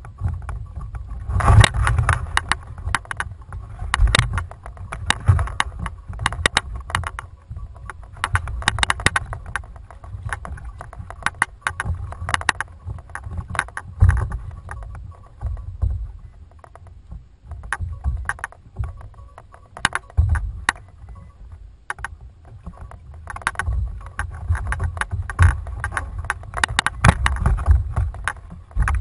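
Fishing kayak on open ocean: low rumble of wind and water against the hull, with irregular clusters of sharp knocks and clicks from gear handled on the boat.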